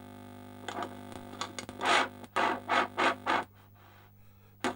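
Loudspeaker of a hi-fi tuner converted into a 27 MHz CB receiver: a steady hum, then a few seconds of irregular scratchy, crackling bursts as it picks up the CB channel. A single sharp click comes near the end.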